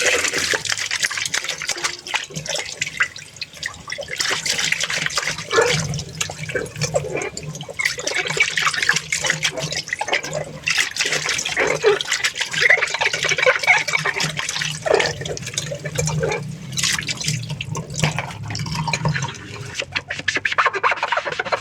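Dishwashing at a sink: tap water running and splashing, with dishes and glasses repeatedly clinking and knocking against each other.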